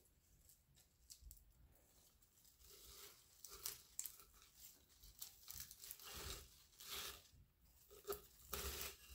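Faint, irregular rustling and crackling of leafy flower stems as they are pushed in among the other flowers in a glass vase, heavier in the second half.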